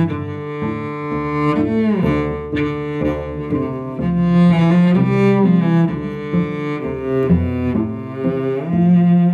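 Two cellos playing a bowed duet, several notes sounding together and changing every half second or so, with a few slides between notes.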